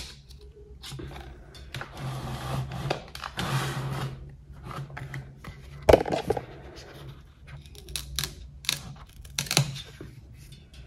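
Scissors snipping at the base of a Phalaenopsis orchid leaf, with the rustle and rubbing of the leaves being handled. The loudest click comes about six seconds in, and a few smaller clicks follow near the end.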